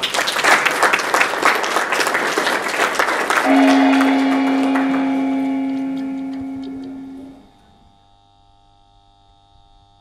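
Audience applauding for about three and a half seconds, then an outro sting takes over: one loud held electronic tone with overtones that fades and stops about seven and a half seconds in, leaving a faint sustained chord.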